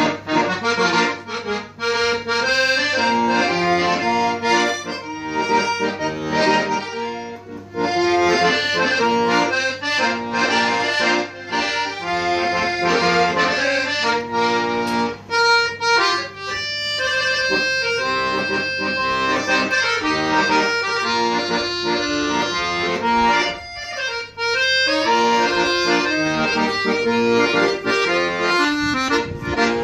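Manfrini piano accordion playing a melody over held chords, its reeds sounding continuously with the notes changing quickly.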